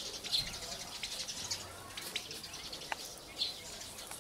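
Turkey poults peeping: short, high chirps scattered about a second apart.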